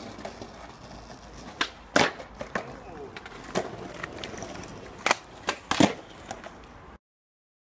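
Skateboard rolling over brick paving, with a series of sharp clacks as the board's tail and wheels hit the ground during trick attempts; the loudest clack comes about two seconds in and two come close together near the end. The sound cuts off abruptly about seven seconds in.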